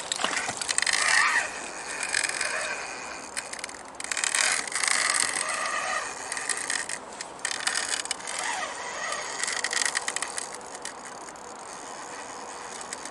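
Fishing reel being wound in spells under the load of a hooked salmon, a rattling, clicking mechanical sound that starts and stops several times.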